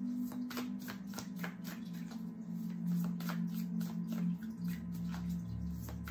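Tarot cards being shuffled and handled, a quick irregular patter of card clicks, over soft background music.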